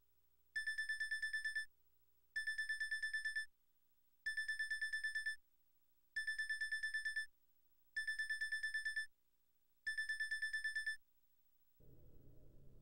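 Electronic telephone-style ring: six trilling rings, each about a second long and roughly two seconds apart, warbling rapidly on a high tone. About a second before the end a low steady noise comes in.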